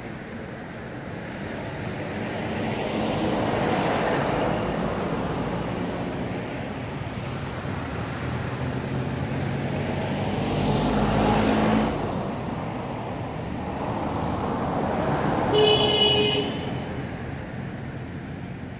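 Road traffic passing, its noise swelling and fading several times, with a low engine rumble in the middle and a short horn-like toot near the end.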